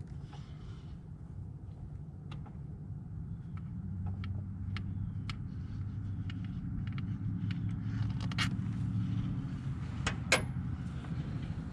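A steady low rumble that grows louder a few seconds in, with scattered light clicks and knocks of hand tools at work on the engine, and one sharper click near the end.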